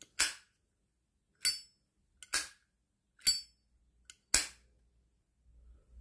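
Zippo lighter's hinged metal lid flicked open and snapped shut over and over: five sharp metallic clicks about a second apart.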